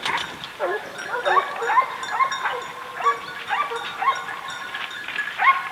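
A pack of hunting dogs yelping and baying, several dogs calling over one another in short rising-and-falling cries, two or three a second.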